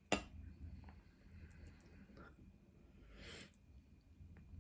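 A single sharp click just after the start, then a short breathy sound, like a breath or sniff, about three seconds in, over faint room noise.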